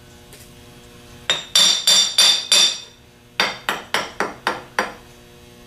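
A hammer tapping the nose housing of a Delco 37MT starter to seat it on the drive end: about eleven quick metal strikes in two runs, each with a short ring.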